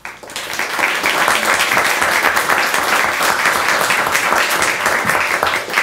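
Audience applauding, building up within the first second and starting to die away near the end.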